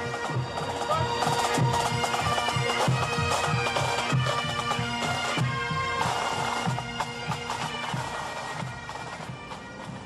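A pipe band playing: Great Highland bagpipes sounding their melody over steady drones, with a regular drumbeat underneath. The music fades down near the end.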